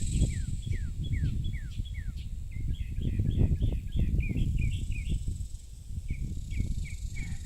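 Birds chirping: a quick series of short falling chirps, then a faster run of higher chirps, over a low rumbling noise and a steady faint high insect hum.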